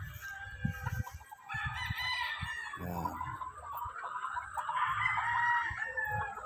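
Gamefowl roosters crowing, with two long crows, one about a second and a half in that falls away at its end and a louder one about four and a half seconds in, over shorter clucks from other birds.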